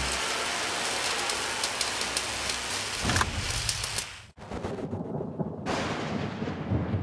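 Thunderstorm: heavy rain hissing with low rumbles of thunder. A rumble swells about three seconds in. Just after four seconds the sound cuts out for an instant, then deeper rolling thunder follows under the rain.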